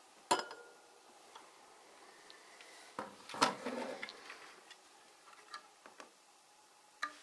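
Hard plastic building bricks of a toy rocket-launcher model clicking and knocking as its hinged parts are handled: a sharp click just after the start, a cluster of knocks and rattles about three seconds in, then a few light clicks.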